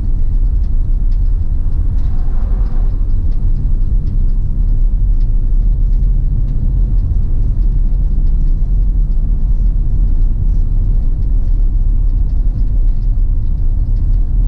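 Steady low rumble of a vehicle driving on a paved road, heard from inside the cab: engine and tyre noise. There is a faint, brief swell about two seconds in.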